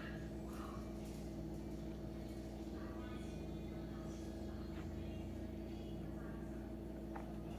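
Steady low hum of a machine or appliance running, with faint, brief higher sounds here and there.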